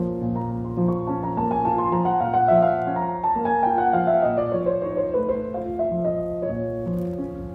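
Steinway grand piano being played: chords over repeated bass notes, with a run of higher notes stepping downward through the middle.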